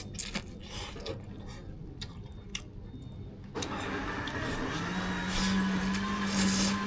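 Scattered clicks and clinks of utensils at a table. About three and a half seconds in, the sound changes abruptly to street noise, and a steady engine hum comes in partway through.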